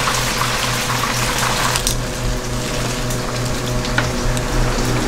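Steady hiss of food cooking in a busy kitchen, over a low, evenly pulsing machine hum, with a few light clicks.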